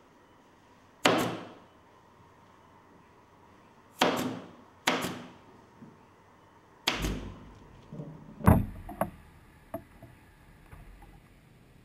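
Pneumatic fastener gun on an air hose firing fasteners into a wooden casket: five sharp shots at irregular intervals of a second or more, the loudest about eight and a half seconds in, followed by a few lighter clicks and knocks.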